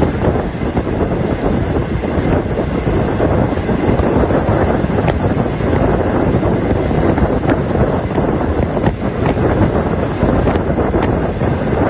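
Wind buffeting the microphone held out of a moving passenger train, over the steady running noise of the train on the track, with a few faint clicks.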